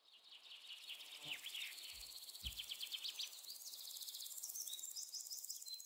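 Faint jungle ambience: birds chirping in quick repeated whistles over a steady high insect hiss, with a few soft low thumps in the first couple of seconds.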